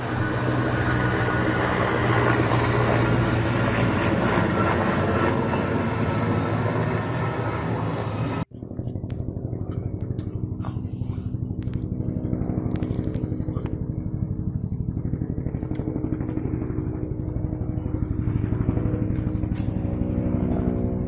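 Helicopter flying overhead: steady rotor and engine noise, with an abrupt cut about eight and a half seconds in to a duller stretch of rapid, even rotor chop.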